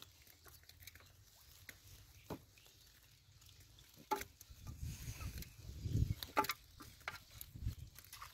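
Hands rummaging through a pile of wet mud, weed and small fish on a plastic tarp: faint, scattered squelches, rustles and soft clicks, sparse at first and busier from about four seconds in.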